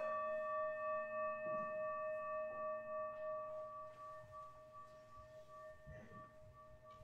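Singing bowl struck once, ringing with a low tone and several higher overtones that waver slightly and slowly fade; it is struck again right at the end. It is the signal that opens a period of silent meditation.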